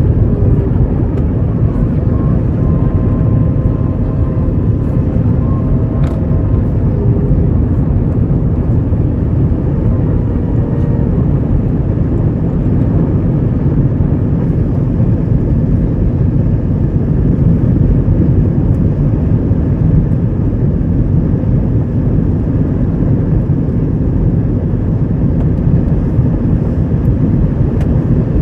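Airbus A321 jet engines at takeoff power, heard as a steady low rumble that holds its level throughout, with faint steady tones above it for roughly the first ten seconds.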